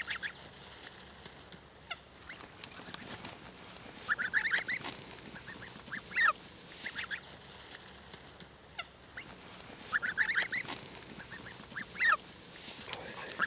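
Young greylag geese giving short bursts of high-pitched calls, four or so times, with quieter stretches between.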